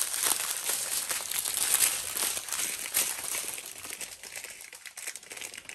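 Small plastic zip-lock bags of diamond-painting drills crinkling as they are handled and laid out, louder over the first few seconds and quieter near the end.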